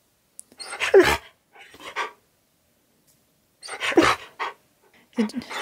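A husky–malamute cross 'talking': four short bouts of dog vocalising, the pitch sliding up and down within each, with silent gaps between them.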